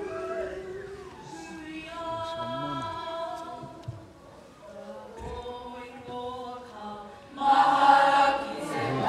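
A group of performers singing together unaccompanied, holding long notes in harmony. Near the end a sudden loud burst of audience cheering breaks in.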